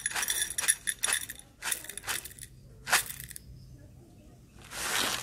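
Whole roasted coffee beans poured into a small stainless steel bowl, clattering against the metal: a dense patter of clicks at first, thinning to scattered single ticks. A short rush of noise comes near the end.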